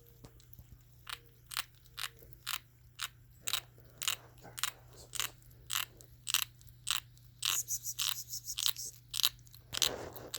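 Kitten eating canned cat food with a repeated crunching, grinding noise from her teeth, about two sharp clicks a second starting about a second in and coming faster later on: she is grinding her teeth as she eats.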